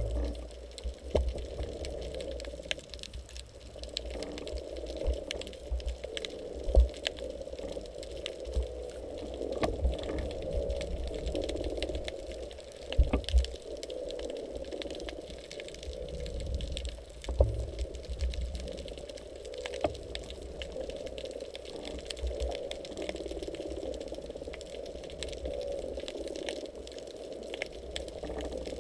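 Underwater sound heard through a camera housing: a muffled, wavering wash of water with frequent dull low thuds and scattered sharp clicks.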